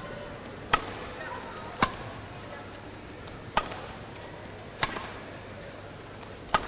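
Badminton rackets striking the shuttlecock in a rally: five sharp hits, one to two seconds apart, with a low hall murmur beneath.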